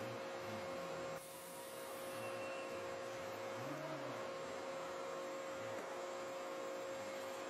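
Steady electrical hum with a constant mid-pitched tone over a noise floor; the background noise drops out briefly about a second in.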